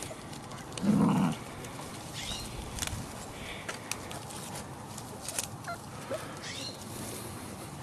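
Dachshund puppies tussling in grass: scattered small rustles and clicks and a few thin, high squeaks. A short, louder, low sound comes about a second in.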